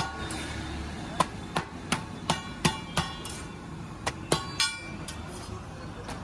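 Metal utensil clanking against metal cookware: about a dozen sharp, irregular strikes, several of them leaving a short metallic ring.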